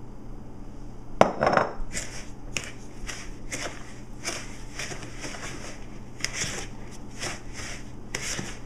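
Wooden spoon creaming peanut butter, softened margarine and sugar in a mixing bowl: a sharp knock about a second in, then repeated scraping strokes, about one or two a second.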